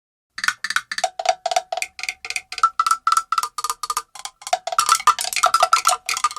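A quick run of short struck percussion notes with a hollow metallic clank, about four a second at a few changing pitches like a simple tune. It starts about half a second in.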